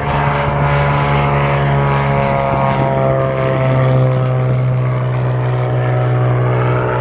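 2007 Cirrus SR20's six-cylinder Continental engine and propeller at full takeoff power as the plane rolls, lifts off and passes by. A steady drone whose pitch falls slightly as it goes past, loudest about four seconds in.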